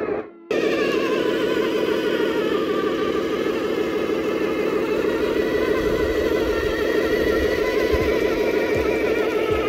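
Electronic engine sound from the remote-control Scania R620 truck's sound unit, running steadily with a gently wavering pitch.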